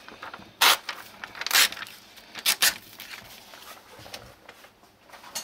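Paper catalogue being handled, rustling and crinkling in several short bursts.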